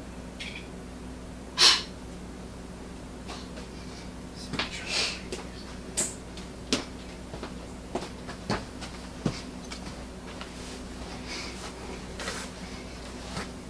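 Scattered short clicks and knocks over a steady low hum, with one louder sharp sound a little under two seconds in.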